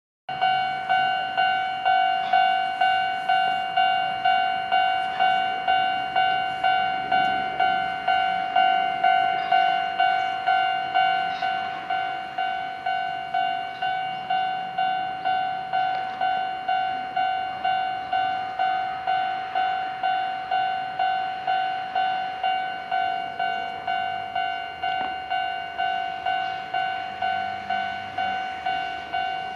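Japanese level-crossing warning alarm ringing: an electronic bell struck about twice a second, each stroke dying away before the next, steady and unchanging in pitch. It grows slightly softer about a third of the way through.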